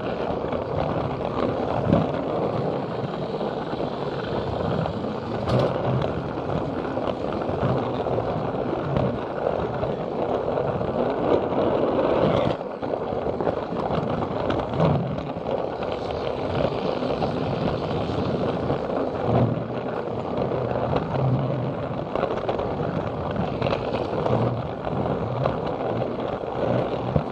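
Plarail battery-powered toy train carrying a small camera, its motor and gears whirring steadily as its plastic wheels roll along plastic track, with a few sharp clicks from the rail joints.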